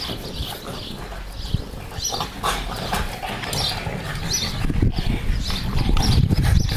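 A blue French bulldog and fawn French bulldog puppies making short vocal noises as they play-fight. A low rumbling noise grows louder over the second half.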